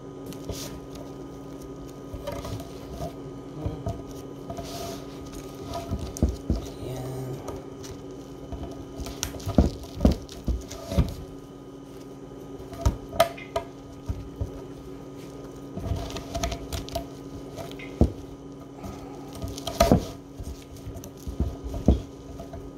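Bamboo sushi mat being rolled and pressed around a kimbap roll on a wooden cutting board: irregular soft taps and clicks of the slats against the board, with a few sharper knocks.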